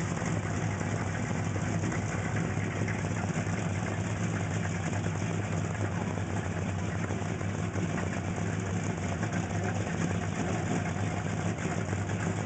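Fox-body Ford Mustang GT's V8 idling steadily, low and even, with no revving.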